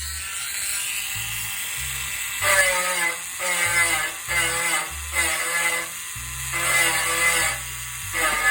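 Small handheld rotary tool (a 100-yen-shop mini router) grinding as it engraves, its high whine rising and falling in repeated pulses as the bit is pressed in and lifted, over background music with a steady beat.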